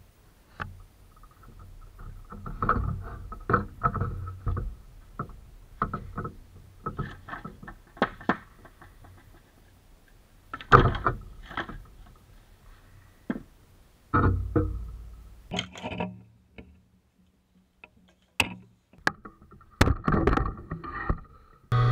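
Irregular knocks and clatters of boards and tools being handled in a woodshop, some loud and sharp, with a faint steady hum at times.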